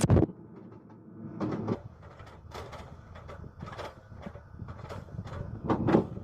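Excavator working: a steady low engine rumble with irregular knocks and clanks, one louder clank near the end.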